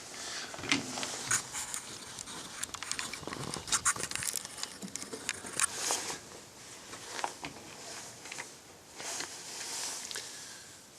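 Small irregular clicks and rustling from handling a pistol and its .22 LR ammunition while getting ready to shoot; no shots are fired.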